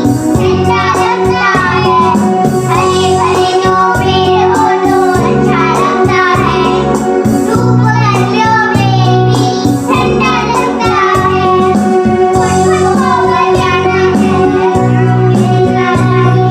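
Children singing a song over instrumental backing music.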